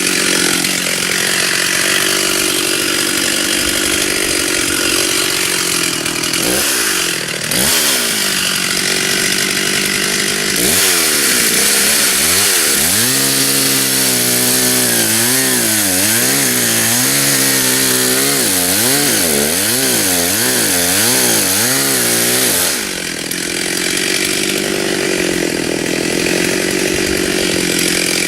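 Stihl two-stroke chainsaw idling, revved twice briefly, then held at full throttle for about twelve seconds while cutting oak, its pitch dipping and rising about once a second as the chain loads in the wood, before dropping back to idle.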